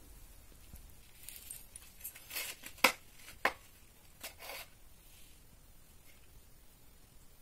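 Roti being torn apart by hand over a stainless steel plate: soft crackly tearing and rustling in short spells, with two sharp clicks about three seconds in, half a second apart.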